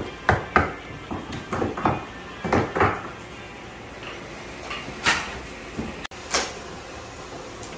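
Sharp wooden knocks and clunks at irregular intervals, from studs and loose lumber being handled and struck during wall demolition.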